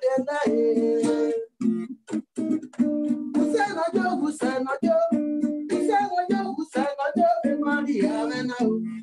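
A man singing while strumming an acoustic guitar, heard over a video call, the sound dropping out briefly about two seconds in.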